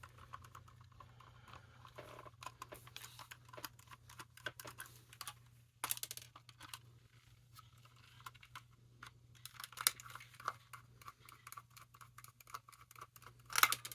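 Irregular small clicks, taps and rustles of hands and small tools working into a Furby's plastic shell and fur, with a few sharper knocks, over a steady low hum.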